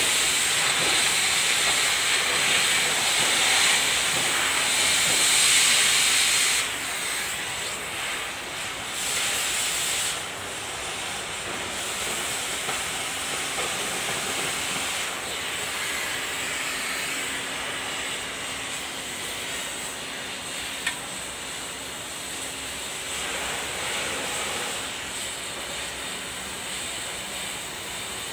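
A steady hissing noise, louder for the first six or so seconds and then carrying on a little quieter, with a faint low hum underneath and one small click about two-thirds of the way through.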